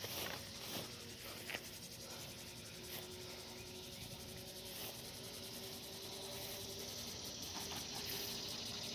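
Insects trilling in a fast, even, high-pitched pulse over a steady hiss, with a faint steady hum coming in about two and a half seconds in.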